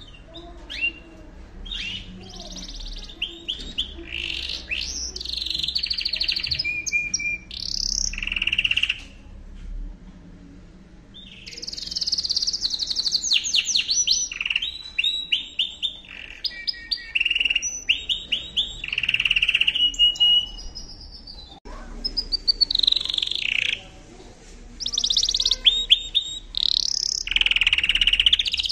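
Yorkshire canary singing long phrases of fast trills and held whistled notes, with short breaks between phrases: song of a bird coming into breeding condition.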